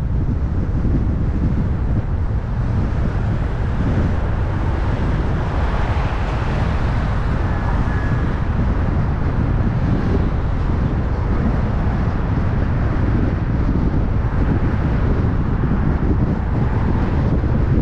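Wind buffeting the microphone of an action camera mounted outside on a moving car's hood: a steady low rumble with road and tyre noise mixed in.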